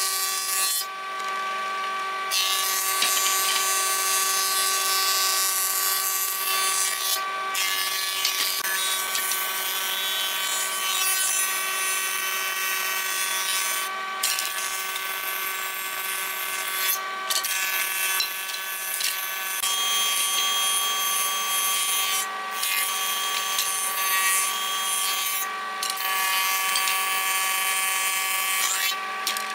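Combination jointer-thickness planer running, its cutterhead planing pallet boards fed through one after another: a steady machine whine under the hiss of the cutting, which breaks off briefly about seven times between boards.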